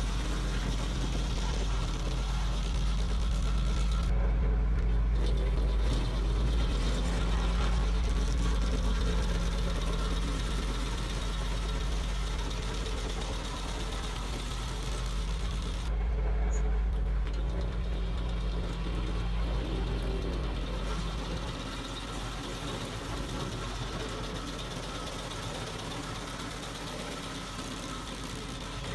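Diesel engine of heavy machinery running steadily with a constant low hum, easing slightly quieter in the second half.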